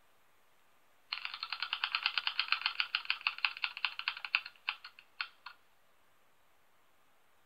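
Ticking sound effect of an online spinning name-picker wheel, played through the computer's speakers. The rapid ticks start about a second in, space out as the wheel slows, and stop with a few last ticks about five and a half seconds in.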